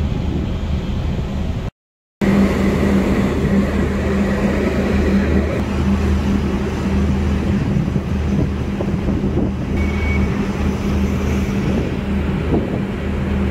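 Marine diesel engine running steadily with a low, even hum, over a rush of wind and churning water. The sound cuts out for about half a second about two seconds in.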